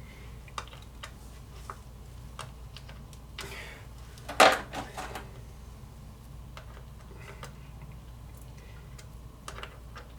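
Scattered light clicks and clinks of small metal tools and parts being handled on a workbench, with one louder clatter about four and a half seconds in.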